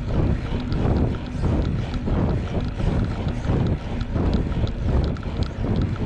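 Wind buffeting the microphone over a rushing, water-like noise, surging and easing in uneven pulses, with a few faint ticks.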